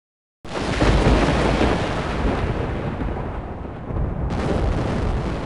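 Thunder: a loud rumbling peal that starts abruptly about half a second in and slowly fades, then a second, sharper peal just after four seconds that rolls on.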